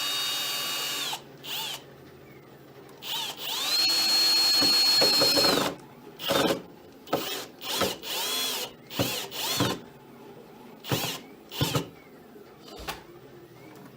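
Power drill driving a long screw home. There is a steady run at the start and a longer, louder run about four seconds in, then a string of short trigger bursts as the screw is snugged tight, the motor whine rising and falling with each one.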